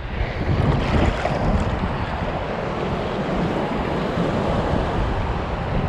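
Rough surf washing on the beach, mixed with strong wind buffeting the microphone: a steady, dense rush with a heavy low rumble.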